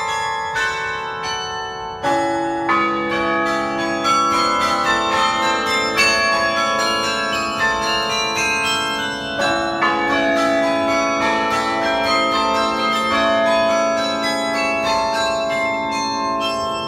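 Sather Tower carillon being played from its baton keyboard: a quick melody on the higher bells over held deeper bells, each stroke ringing on so that the notes overlap heavily. Deeper bells come in about two seconds in.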